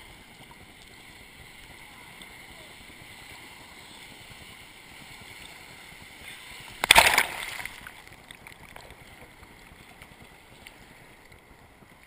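Ocean surf heard at water level: a steady wash of moving water, with one loud splash about seven seconds in as a wave breaks over the microphone.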